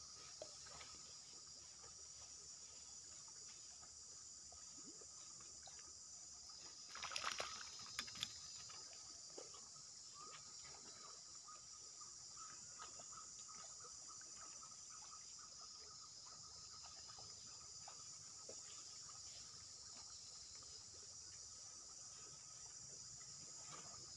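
Faint, steady high-pitched insect chorus, with a fainter steady tone below it. A brief cluster of sharp sounds comes about seven seconds in.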